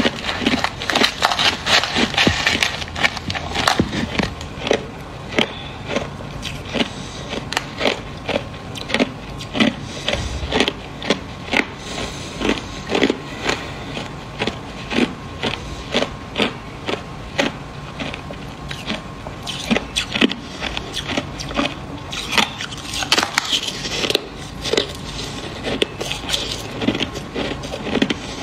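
Crushed clear ice being crunched between the teeth: sharp, brittle crunches, packed close together at first and again near the end, about one or two a second in between. A plastic spoon scrapes through the ice in the tub.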